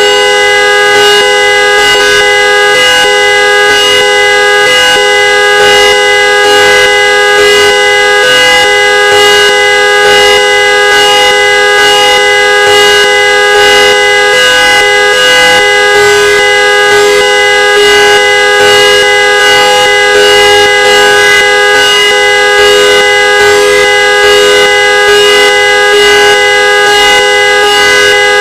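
Trumpet-style car horn sounding continuously and loudly: a steady chord of several notes held without a break or any change in pitch.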